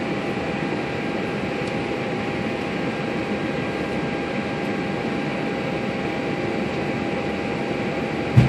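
Steady flight-deck noise of an Airbus A320: an even rush of air from the air-conditioning and equipment fans, with a faint steady whine. A brief thump near the end.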